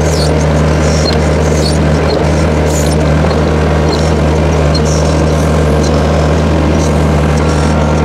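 Case 1845C skid steer's diesel engine running steadily with an even low drone, driving the hydraulics of a John Deere Pro 900 backhoe attachment as its bucket digs out a tree stump.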